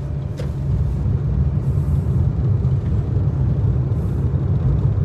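Steady low rumble of a moving car's engine and road noise, heard from inside the cabin.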